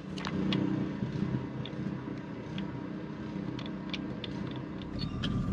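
A small engine hums steadily in the background, with scattered light clicks and taps of hands working on the outboard's uncovered powerhead. A thin steady tone comes in near the end.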